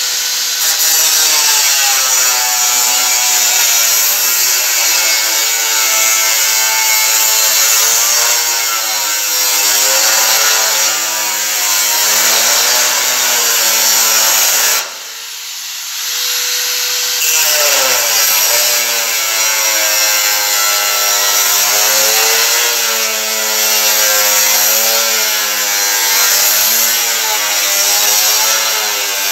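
Angle grinder with a cut-off disc cutting through sheet metal: a loud, continuous hiss of disc on metal over a motor whine whose pitch wavers as it is loaded. About halfway through, the disc leaves the cut for a couple of seconds and the motor spins freely at a steady pitch, then bites into the metal again.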